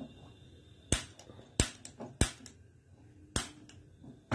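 Handheld piezo gas lighter clicking four times at a gas stove burner, sparking to light the flame, which does not catch within these clicks.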